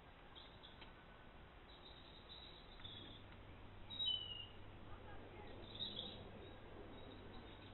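Wild songbirds giving faint, thin, high chirps and short calls, the clearest a brief falling note about four seconds in.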